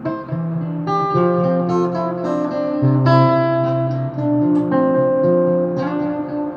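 Acoustic guitar played fingerstyle: picked melody notes ring over held bass notes, in a slow, even rhythm.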